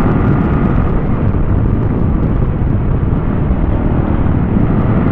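Steady wind rush and road noise from a motorcycle on the move, buffeting the rider's microphone.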